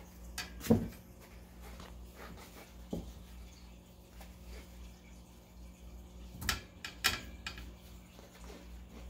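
Pomsky puppy chewing and licking the playpen bars: a few sharp clicks and knocks of teeth on the bars, the loudest about a second in and two more close together near the end.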